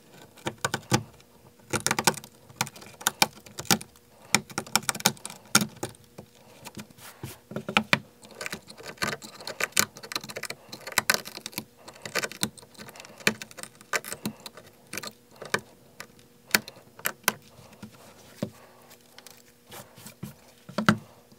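Shattered iPhone 12 back glass being pried and scraped off the frame with a small hand tool: a continuous irregular run of sharp clicks, ticks and crackles as pieces of glass break and scrape free.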